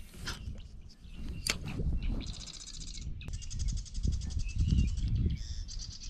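A songbird trilling: rapid, evenly repeated high notes in three bouts, the longest about two seconds, over an uneven low rumble.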